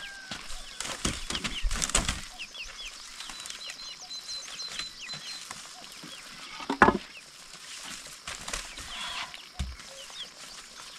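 Chickens clucking among small birds chirping, with one louder call a little past the middle. In the first two seconds there are knocks and scraping as a woven bamboo mat panel is handled.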